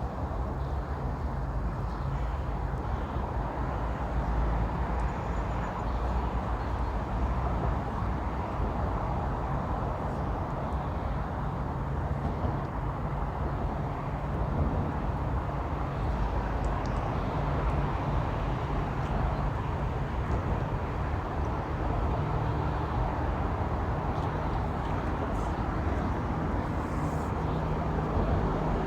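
Steady low rumble of road traffic, unbroken, with a few low droning tones.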